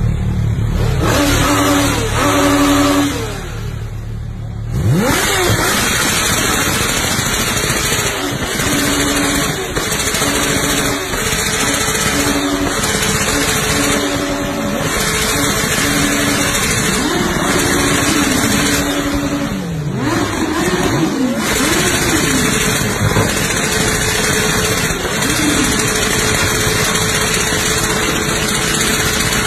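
Sport motorcycle engine revved hard while standing still, held at high revs for long stretches with repeated rises and falls in pitch, and dropping back briefly a few seconds in.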